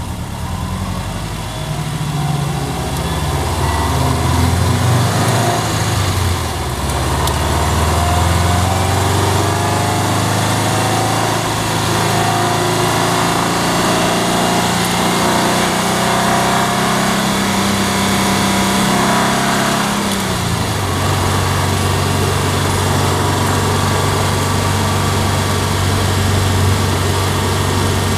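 2011 Subaru WRX's turbocharged flat-four engine running as the car drives at moderate speed: the engine note rises over the first few seconds, holds steady, then drops suddenly about twenty seconds in and carries on steadily at a lower pitch, as with an upshift or lifting off.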